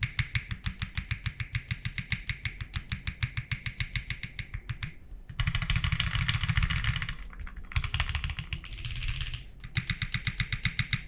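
Mechanical keyboard typing: an OTD 356.2 with Nixies switches on a polycarbonate half plate, keys clacking in a quick steady run of about eight to ten strokes a second. There are two stretches of faster, denser keystrokes in the middle, each with a brief pause before it.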